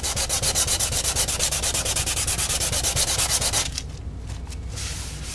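Hand sanding over a spot of cured thin CA glue on a primed fiberglass fairing, to smooth it level: fast, even back-and-forth strokes, about eight or nine a second, that stop after about three and a half seconds.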